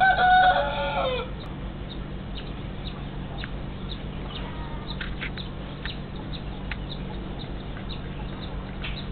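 A rooster crowing, its long held final note falling away about a second in. Afterwards only a steady low hum and faint scattered ticks remain.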